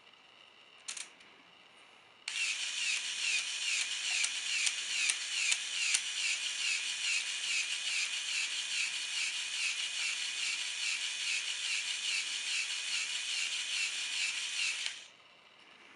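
LEGO Technic Power Functions motor running the model's gear train. It makes a steady whir with a rhythmic clicking of about three strokes a second, starting about two seconds in and cutting off suddenly near the end. A brief click comes just before it.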